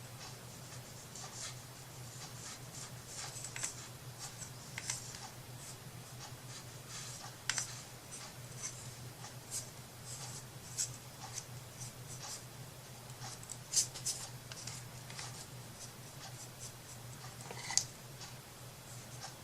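Small, irregular clicks, taps and scratchy rubbing from wooden craft pieces and tools being handled on a work surface, over a steady low hum.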